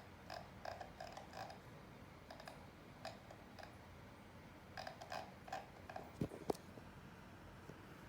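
Faint, irregular light clicks and taps, like keys or buttons being pressed, with two sharper knocks a little after six seconds in.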